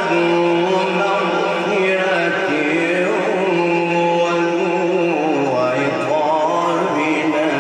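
A man's melodic Quran recitation, one voice drawing out long ornamented notes that wind up and down in pitch, with a drop to a lower register about two-thirds of the way through.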